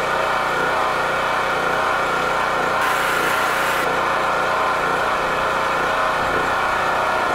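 An engine running steadily at an even idle, with a short burst of hiss about three seconds in.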